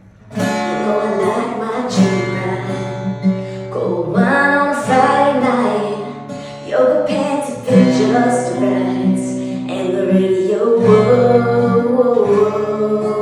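Country song intro led by acoustic guitar over a steady bass line, starting abruptly.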